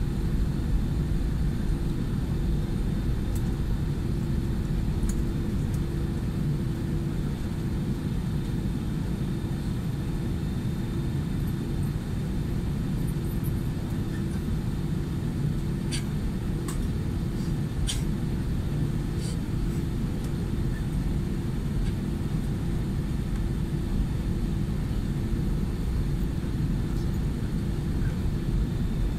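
Airbus A320 cabin noise while taxiing on the ground: a steady low rumble from the engines at low power with a constant hum. A few faint clicks about halfway through.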